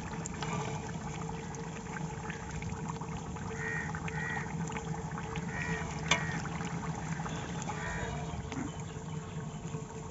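Chicken broth bubbling as it simmers in a large aluminium deg, over a steady low hum, with a few short high calls now and then.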